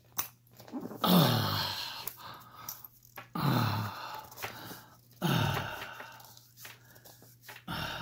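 A man groaning three times, each groan falling in pitch and trailing off into a breathy exhale, with a few small metallic clicks of the padlock parts being handled.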